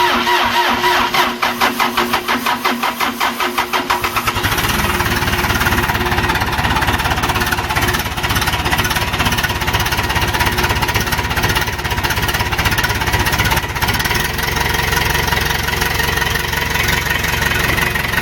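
Case 580K backhoe's diesel engine cranking on the starter in even pulses for about four seconds, then catching and running steadily at idle. A hard start, helped by starting fluid, which the owner puts down to the engine having once been run hot.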